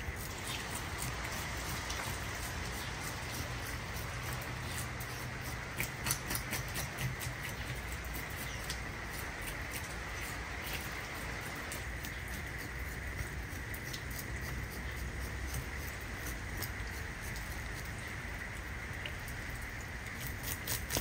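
Fish scales being scraped off a whole snapper with a fork on a wooden cutting board: a run of quick, irregular scratchy ticks as the scales flick off.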